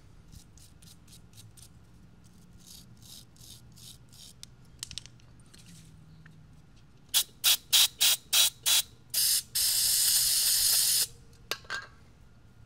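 Aerosol carburetor cleaner sprayed onto a fouled spark plug: about seven short spurts, then one longer spray of about a second and a half, then two more short spurts. Before the spraying, faint scratching strokes of a wire brush scrubbing the plug.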